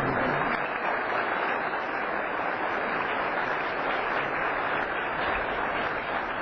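A large crowd applauding steadily.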